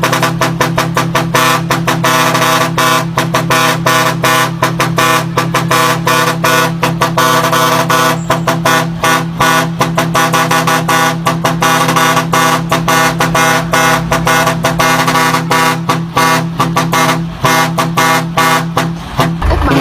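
Truck's multi-tone musical air horn sounding several notes at once as a chord, pulsed on and off in a rapid rhythm.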